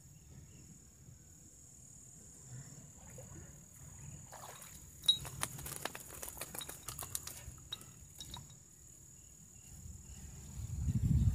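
A fish pulled from the river on a hand line splashes about five seconds in, then flaps and slaps on the wet sand in a quick run of sharp taps for about three seconds. A steady high insect whine runs underneath, and a low rumble grows louder near the end.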